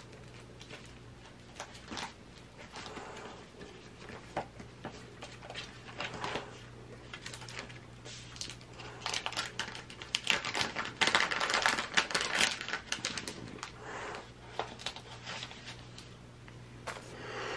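Small clicks, taps and paper rustles from sticker sheets and planner pages being handled at a desk. They are scattered at first and busiest and loudest from about nine to thirteen seconds in, over a steady low hum.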